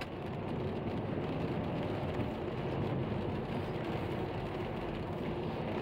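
Steady noise inside a moving car on a rain-wet road: tyres on wet asphalt with the engine running underneath.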